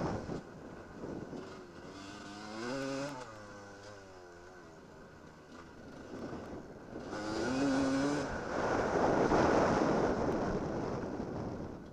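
Enduro dirt bike engine under hard riding, its pitch climbing and dropping a couple of times through the throttle and gears, then a loud stretch of sustained throttle near the end.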